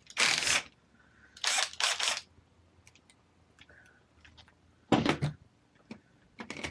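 Handling noise from an RC truck being picked up and turned over on the bench: four short bursts of rustling and clatter with a few small clicks between them.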